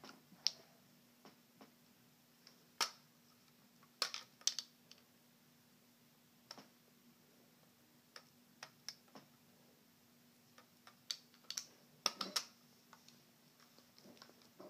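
B-flat clarinet being assembled by hand: irregular clicks and taps of its keys and joints as the sections are handled, lined up and pushed together, with a small cluster of knocks near the end.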